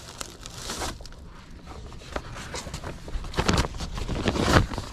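Plastic bags and cardboard rustling and crinkling as they are rummaged through by hand, with scattered knocks. It gets busier and louder in the second half.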